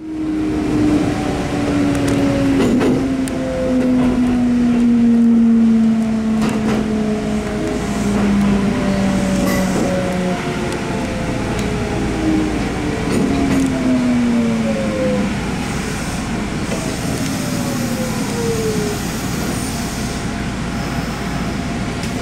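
Kintetsu electric train heard from inside the front of the car, slowing into a station: traction-motor whine falling in pitch in several steps as it brakes, over a steady wheel-and-track rumble with a few clicks, the whine dying away near the end.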